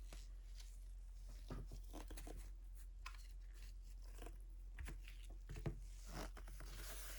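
Faint, scattered clicks and rustles of glossy trading cards being handled and slid through by hand, over a low steady hum.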